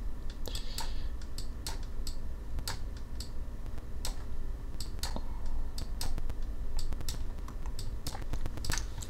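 Computer mouse button clicking at an irregular pace, roughly once or twice a second, over a steady low hum.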